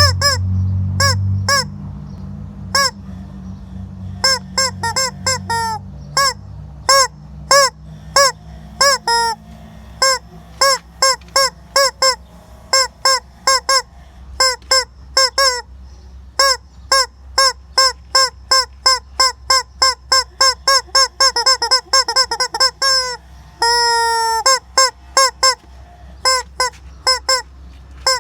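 Squeaky rubber chicken toy being squeezed again and again, each squeeze a short honking squawk that rises and falls in pitch, coming faster, about two to three a second, in the middle stretch. One longer, held squawk comes about two-thirds of the way in.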